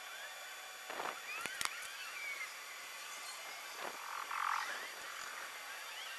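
Outdoor background of short chirping animal calls, with a few sharp knocks and clicks from an aluminium stepladder being climbed and stood on.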